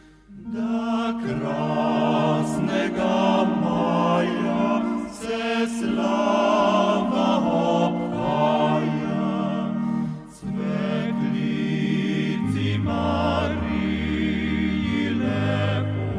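A choir singing a Slovenian song in several voice parts, in phrases with short breaks between them. Deeper voices join about two-thirds of the way through.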